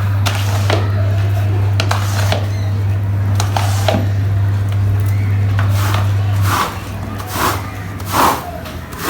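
A cleaning machine's motor hums steadily and cuts off about two-thirds of the way through. Repeated short, noisy strokes of rug cleaning work on wet carpet continue throughout, with several louder strokes near the end.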